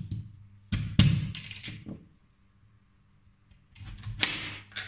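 Kitchen work at the counter while sweet potato is being sliced: a cluster of knocks and thuds, like a knife and pieces on a cutting board, about a second in, then a short rustle near the end.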